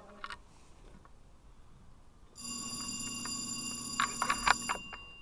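An electronic timer alarm goes off about two seconds in, a steady ringing for about two and a half seconds with a few clicks near its end, marking the end of a 20-minute timed shooting period.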